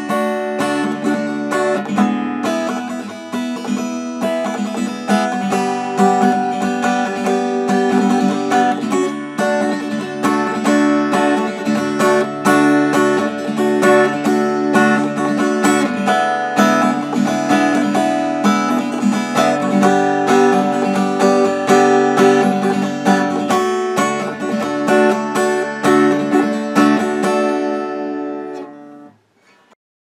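Acoustic guitar being strummed, chords played continuously, recorded on the camera's built-in microphone rather than an external mic. The playing stops about a second before the end.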